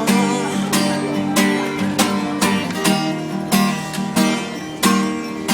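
Acoustic guitar strummed in a steady rhythm, a chord stroke about every half second, with no singing.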